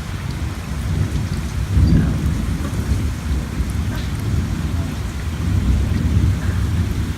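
Thunderstorm: steady rain with a low rolling rumble of thunder that swells about two seconds in.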